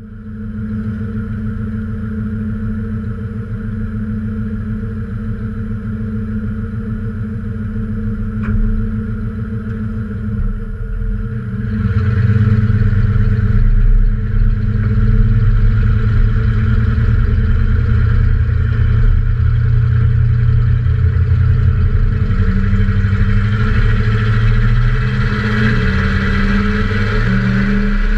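1995 Ford F-150's 302 (5.0 L) V8 running with its QTP exhaust cutout closed, so the exhaust goes through a second cat and a Cherry Bomb muffler. It runs steadily, gets louder about halfway through, and its pitch climbs in steps near the end.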